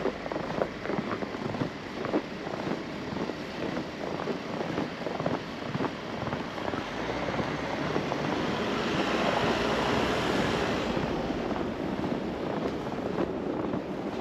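Footsteps crunching in fresh snow at a steady walking pace, about two steps a second. Midway through, a passing vehicle's tyre and engine noise swells up, covers the steps for a few seconds, and fades away.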